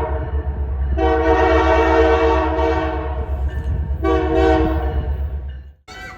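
Diesel locomotive's multi-chime air horn: a long blast, then a short one, over the low rumble of the passing train. With the blast just before, this fits the long-long-short pattern of a grade-crossing signal. The sound cuts off abruptly near the end.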